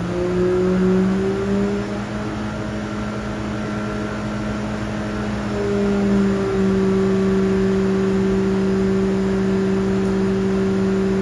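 Stroked 1551 cc Suzuki Hayabusa inline-four running on an engine dyno, held at a steady speed and stepping up a notch in speed about halfway through, as the engine is broken in and its air-fuel ratios are mapped across the rev range.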